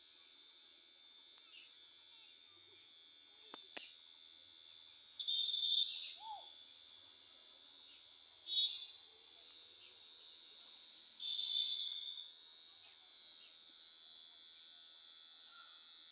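Insects trilling in a steady high drone, with three louder pulsing trills of about a second each spread through the stretch.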